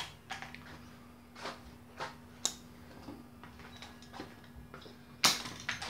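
Scattered clicks and knocks from parts and tools being handled inside a washing machine under repair, the loudest a sharp knock about five seconds in. A faint steady hum runs underneath.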